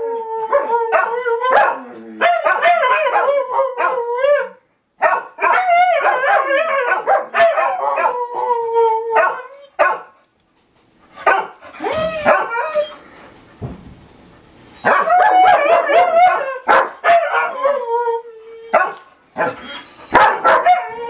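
Several dogs, a husky-type dog among them, howling together in long wavering bouts of several seconds with short pauses between, broken by short barks and yips.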